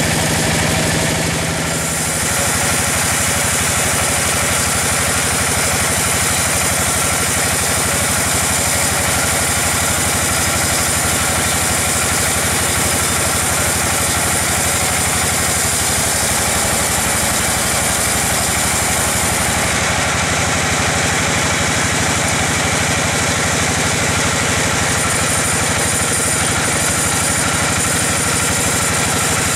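Bandsaw mill running steadily, its blade sawing lengthwise through a log. A high whine from the cut comes in about two seconds in and fades about two-thirds of the way through.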